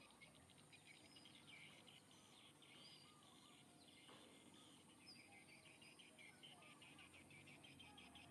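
Near silence: faint rural ambience with a fast, steady ticking chorus and a few scattered short chirps.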